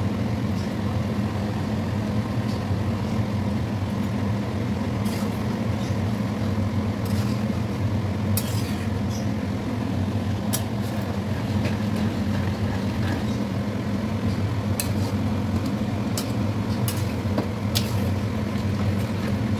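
Steady low mechanical hum, with a metal spoon clinking and scraping against a large metal kadai now and then as the food in it is stirred.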